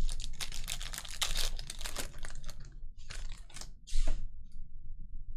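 Stiff cardboard trading cards being flicked and slid against each other as they are sorted by hand: a quick run of dense clicking and rustling for about two seconds, then two shorter bursts.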